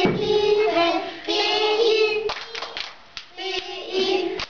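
A small group, mostly children, singing a children's song about the Bible, with hands clapping along. About halfway through the singing breaks off for a second of claps, then resumes.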